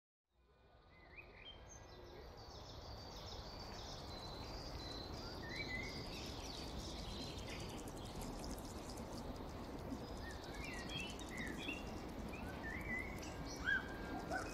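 Electronic nature soundscape from a SuperCollider-driven installation, fading in from silence to a steady rushing bed with many short bird-like chirps and whistles scattered over it.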